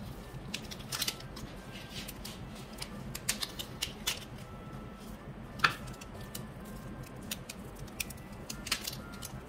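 Glittery slime pressed and squeezed by hand, giving scattered sharp clicks and small pops, with one louder snap about five and a half seconds in.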